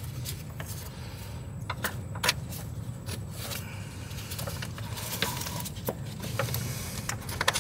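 Scattered light metallic clicks and taps of hands and tools handling the alternator and its fittings in a car's engine bay, over a low steady hum.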